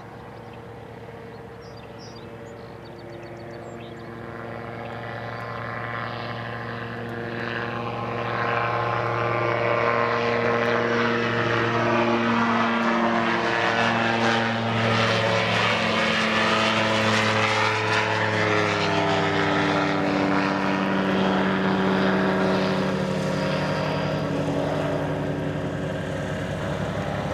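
DTA J-RO gyrocopter's turbocharged Rotax 914 flat-four engine and pusher propeller at takeoff power, growing louder over the first several seconds as it accelerates and lifts off. It passes close by, and after about two-thirds of the way through its pitch drops as it climbs away.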